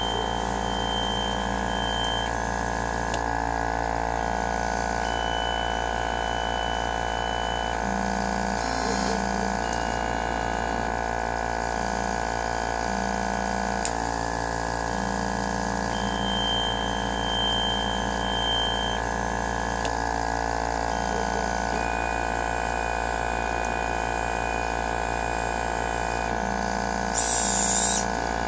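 Homemade gantry pick-and-place machine running. A steady hum is broken by motor tones that switch on and off as the head moves, and two short hisses come, about nine seconds in and again near the end.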